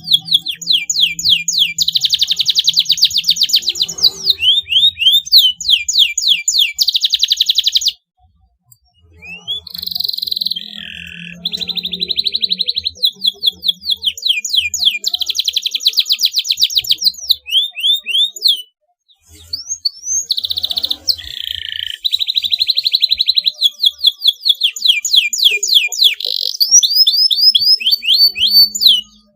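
Domestic canary singing a long song of rapid trills and quickly repeated notes, with two short breaks, about eight and nineteen seconds in.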